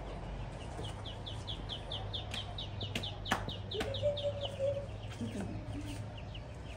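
Ducklings peeping in a plastic crate: a quick run of high calls, each falling in pitch, about four or five a second, thinning out after about four seconds. A few sharp clicks sound partway through.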